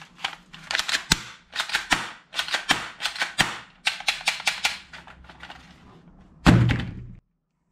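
Plastic clicks and rattles of a toy Desert Eagle-style pistol being handled, coming in quick irregular bunches for the first few seconds and then fainter. A single louder thump comes near the end, after which the sound cuts off.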